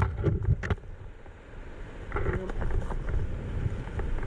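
Wind buffeting the microphone as a steady low rumble, with scattered clicks and rustles of gear being handled.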